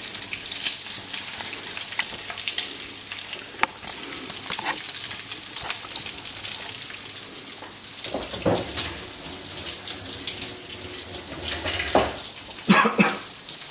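Diced guanciale frying in its rendered fat in a pan: steady sizzling with small crackles and pops. A few louder knocks, the strongest near the end.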